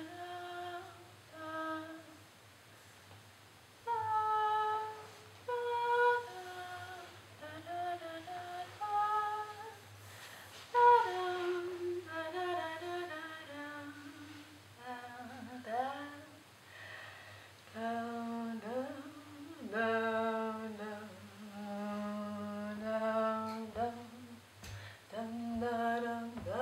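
A woman's voice humming and singing a wordless melody in short phrases, with the pitch sliding up now and then.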